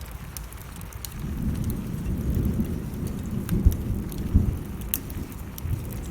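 A low rolling rumble of thunder that builds about a second in and fades near the end, over steady rain and the sharp pops of a wood fire crackling.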